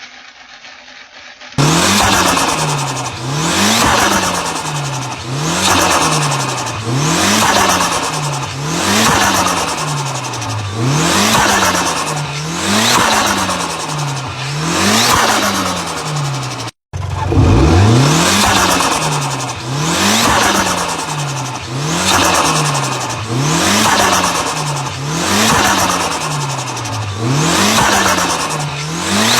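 Turbo diesel truck engine revved over and over, about once every two seconds, each rev climbing and falling back with a loud rush. On each lift-off the turbo flutters with a 'stututut' chatter as the compressor surges. The revving starts about a second and a half in, after a low hum, and drops out for a moment about halfway through.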